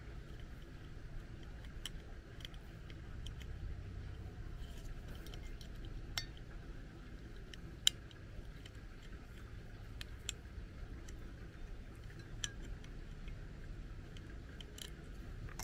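Scattered small plastic clicks and taps as a touch-up paint pen is handled and fitted into the cap holder of an Air-Touch spray can. The sharpest click comes about eight seconds in, over a low steady rumble.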